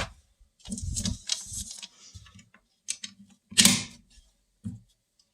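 Metallic clicks and rattles of 5.7x28mm cartridges being handled and pressed one at a time into a Ruger 57 pistol magazine. There are a handful of separate clicks, the loudest a little before four seconds in.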